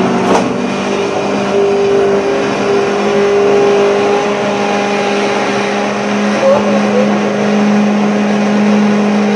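A loud, steady mechanical drone with a low hum, from a machine running in the kitchen. A short sharp click, like a steel spoon striking a steel pot, comes about half a second in.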